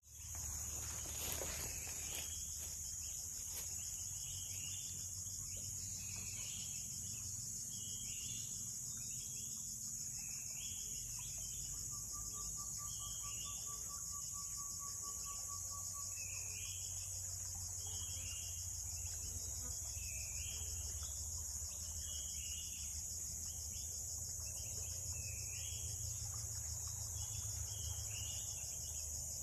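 Insect chorus in tropical forest: a steady high-pitched buzz, with short chirps repeating about once a second.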